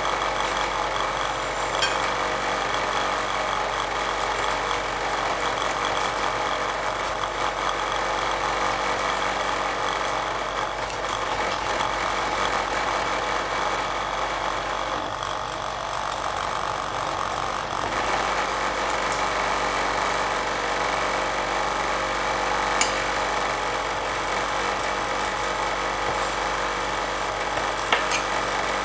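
Steel spatulas scraping and pushing frozen dragon fruit ice cream across a chilled steel ice cream roll pan, rolling it up, over the steady hum of the machine. The scraping eases off for a few seconds in the middle, and a few sharp clicks of metal on metal come near the end.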